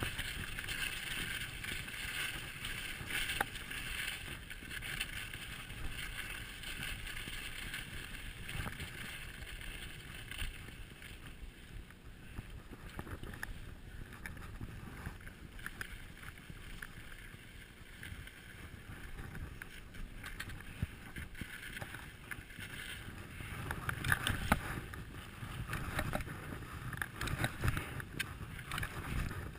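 Skis sliding and turning over packed, groomed snow, a continuous hissing scrape with a few sharp clicks, mixed with wind on the microphone. It grows louder near the end.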